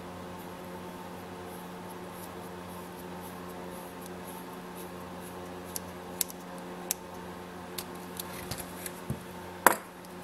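Small sharp clicks and taps of a magnetic screwdriver and screw as a screw is fitted into a small RC truck's suspension arm, scattered over the second half, the loudest near the end. A steady electrical hum runs underneath.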